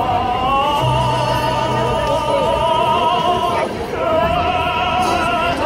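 A male solo singer with instrumental accompaniment over a concert sound system, holding long notes with vibrato, with a brief breath break about three and a half seconds in.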